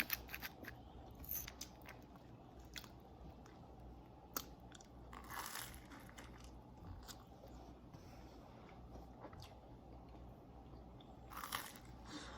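Someone biting and chewing crunchy food, with scattered crisp crunches clustered near the start and a brief longer crunching burst about five seconds in.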